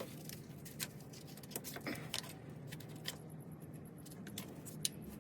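Faint scattered clicks and light metallic rattles of hand work on the engine: the belt tensioner held back with a half-inch drive bar while the drive belt is worked off the pulleys.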